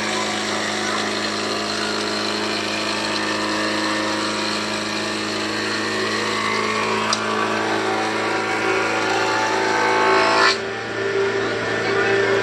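A power tool running with a steady hum. About six seconds in, a higher tone starts to rise in pitch, and it cuts off sharply about ten and a half seconds in.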